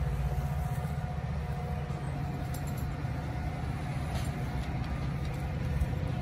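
Diesel locomotive of a stopped Metra commuter train running steadily at the platform: an even low engine drone with a faint steady whine above it.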